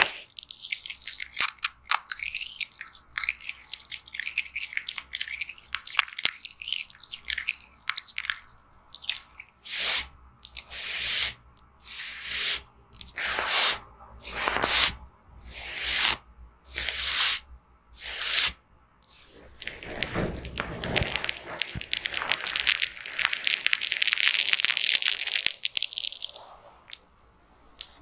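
Close-up crackling of foam being worked with the fingers over a silicone ear on a binaural microphone. Then a tissue wipes the foam off in about eight short strokes, roughly one a second, followed by one longer continuous rub.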